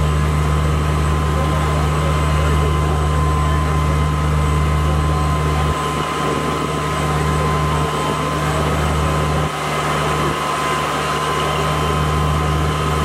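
Fire engine's motor and pump running steadily: a continuous low drone with a thin steady whine above it. The drone dips briefly about six and nine and a half seconds in.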